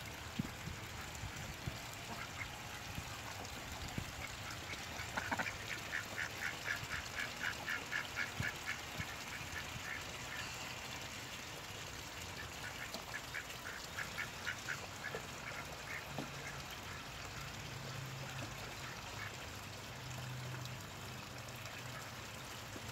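Rouen duck quacking in two runs of short, rapid quacks, about five a second, the first starting about five seconds in and the second about thirteen seconds in.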